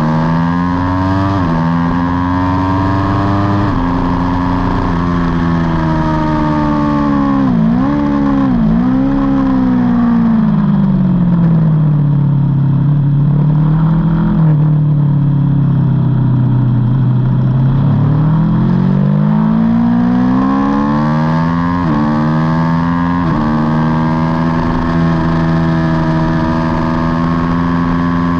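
Aprilia Tuono V4 engine heard on board at race pace. The revs climb and drop sharply several times as it shifts up, swoop down and up again while slowing, run low for several seconds through a slow section, then climb again through more upshifts.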